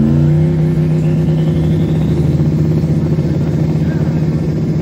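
Pickup truck engine held steady at raised revs after climbing just before, running evenly throughout. A faint rising whistle sounds over it from about one to two and a half seconds in.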